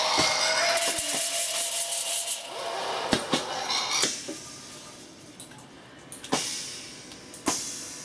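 A pneumatic Halloween prop in action: a long hiss of released air and fog with a held tone fading under it, then a shorter hiss about four seconds in. Four sharp clicks and knocks of the valves and moving arms are spaced through the rest.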